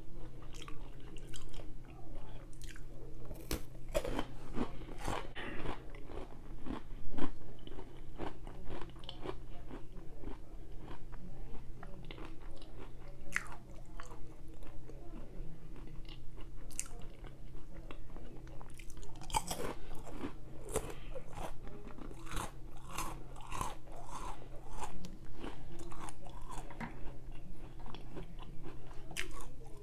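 Close-miked crunching and chewing of a chocolate-dipped pretzel rod: repeated crisp crunches as it is bitten and chewed, over a faint steady hum.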